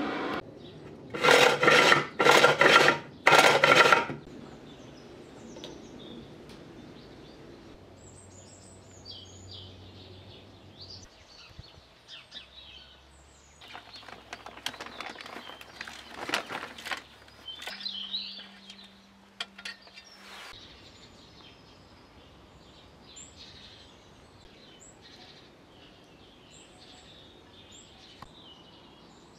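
Three loud bursts of hiss in the first few seconds, then a socket ratchet clicking as a bolt on the tiller's handlebar bracket is tightened about halfway through, with birds chirping in the background.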